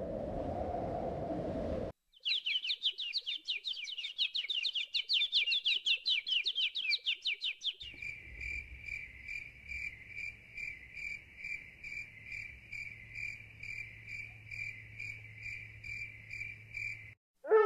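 Wind rushing, cutting off about two seconds in; then a bird chirping in a fast run of high, falling notes for about six seconds; then a cricket chirping steadily at about two chirps a second until just before the end.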